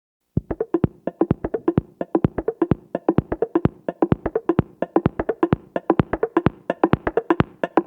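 Background music: a fast, even pattern of clicking percussion hits over a soft pitched tone, starting about half a second in.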